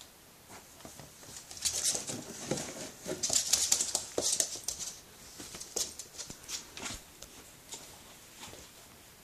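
A border terrier puppy's paws scrabbling on a wooden floor and shaking a plush toy, in irregular bursts of clicks and scuffing, loudest around two and four seconds in.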